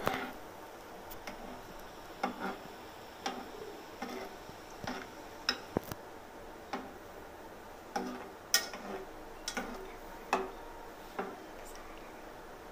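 Dry instant noodles being crumbled by hand in a small metal cooking pot, making irregular crisp clicks and crackles as the brittle pieces snap and hit the pot, about one every half second to second.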